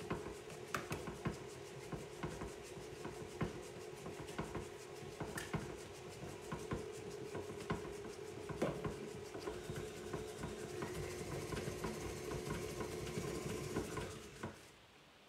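KitchenAid tilt-head stand mixer running steadily, beating eggs into the butter mixture, with many light irregular clicks over its hum. It is switched off about fourteen and a half seconds in.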